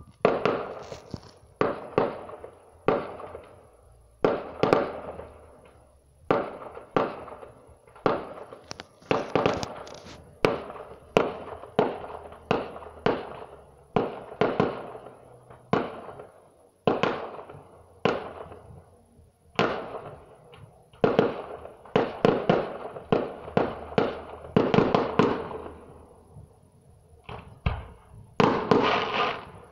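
Fireworks display: aerial shells bursting one after another, one or two bangs a second, each bang trailing off in a fading echo, with a short lull near the end.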